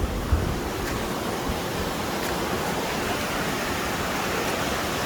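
Waterfall rushing nearby: a steady, even wash of falling water with no let-up.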